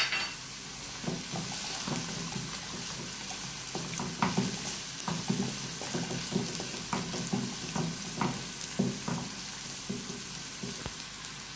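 Diced potatoes and chopped red onion sizzling in hot oil in a non-stick frying pan, with a wooden spatula stirring and scraping them in many short strokes.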